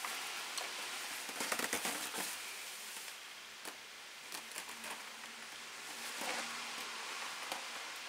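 Hands handling parts in an engine bay: rustling over a steady hiss, a quick run of crackly clicks about a second and a half in, then scattered light knocks and clicks as the plastic engine cover is set back in place.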